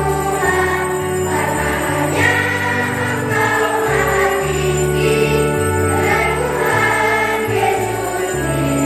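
Children's choir singing a church hymn, with instrumental accompaniment that holds steady bass notes changing about once a second.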